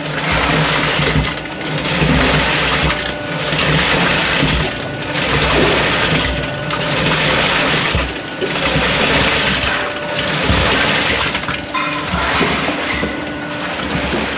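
Small 10 m³/h electric concrete pump running and pumping concrete: a steady motor hum under a gritty churning that swells and dips in a regular cycle about every two seconds.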